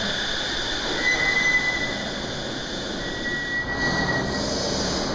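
Shonan Monorail suspended train running, a steady rumble with a thin high squeal that comes and goes about a second in, for about a second around the middle, and again near the end.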